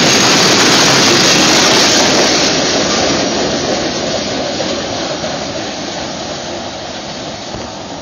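Freight train tank cars rolling past close by: a steady rush of wheel and rail noise that starts fading about two seconds in as the end of the train goes by and pulls away down the track.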